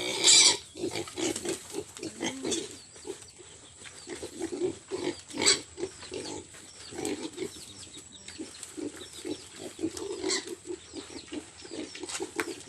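Pigs grunting over and over in short grunts, with a few sharp squeals: the loudest right at the start, others about five and a half and ten seconds in.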